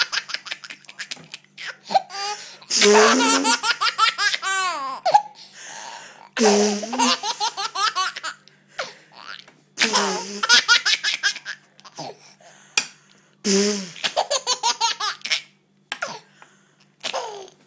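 A baby laughing in repeated bouts of belly laughter, about five fits of rapid, breathy chuckles separated by short pauses.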